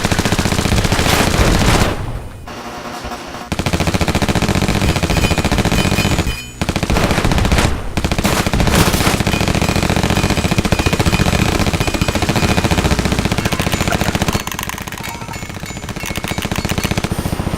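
Sound-designed automatic gunfire: long strings of rapid shots with short breaks about two seconds in and again about six and a half seconds in, quieter near the end.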